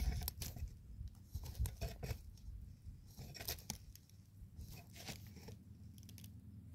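Faint footsteps and rustling across plastic mulch film, with scattered light clicks and clinks.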